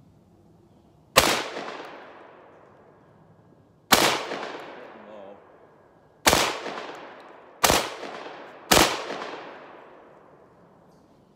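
Panzer Arms AR12 semi-automatic 12-gauge shotgun firing five shots of 2¾-inch 7.5 birdshot, the first two a couple of seconds apart and the last three quicker. Each shot has a long echoing tail off the surrounding woods.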